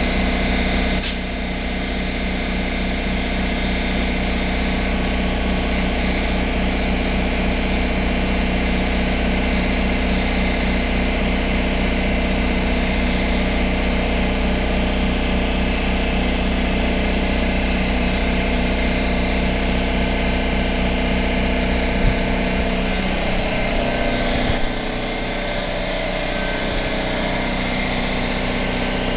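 A motor-driven machine running with a steady hum and a fine low pulsing. A short high hiss falls away about a second in, and near the end a knock comes and the deepest part of the hum drops away.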